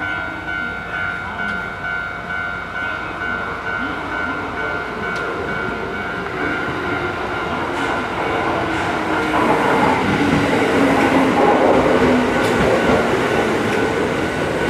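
Interior noise of an electric train car: a steady electrical whine over a rumble of running noise that grows louder about eight seconds in.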